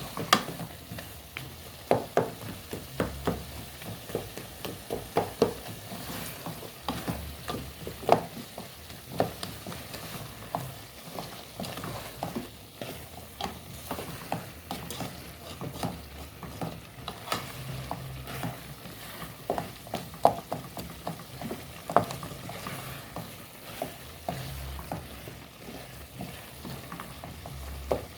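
A spoon stirring stew ingredients in a cooking pot, with irregular clinks and scrapes against the pot over the sizzle of frying in oil.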